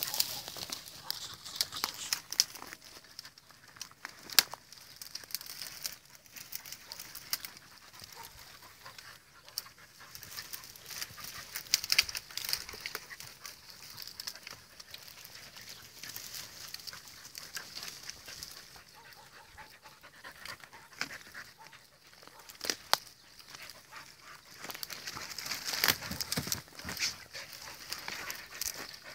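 Dry scrub and twigs rustling and crackling as podenco hunting dogs push through the brush, with scattered sharp snaps and stretches of busier rustling.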